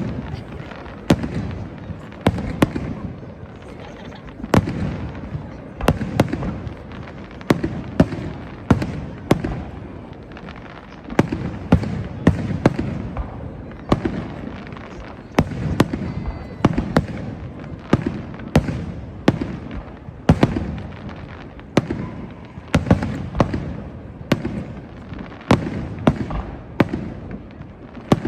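Fireworks display: aerial shells bursting in a string of sharp bangs at irregular intervals, often bunched one to three a second, with a low rumble between them.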